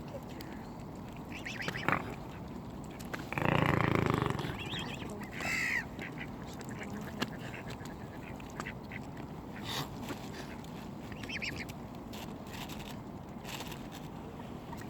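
Mallard ducks quacking now and then, with a loud burst of noise about three and a half seconds in.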